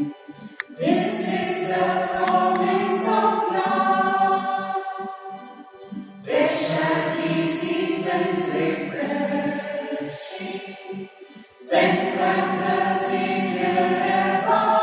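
A group of voices singing a hymn together, in three long sustained phrases.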